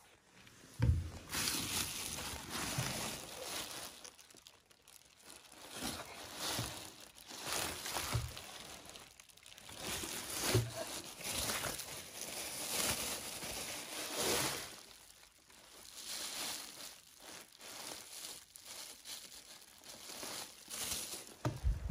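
Bubble wrap and plastic packaging rustling and crinkling in irregular bursts as plastic car tail lights are handled and unwrapped in a cardboard box, with a few dull thumps.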